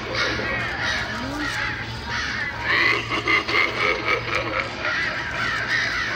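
Halloween animatronic prop's recorded sound effects playing through its speaker: a run of harsh, wavering animal calls over a steady low hum.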